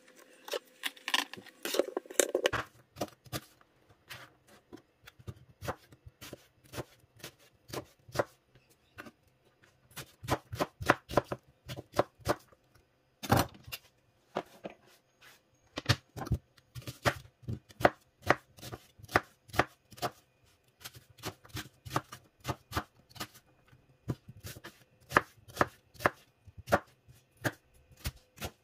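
Kitchen knife dicing onion on a cutting board: quick runs of sharp knocks of the blade against the board, with short pauses between them and one louder knock about halfway through. A short rustle of handling comes at the start.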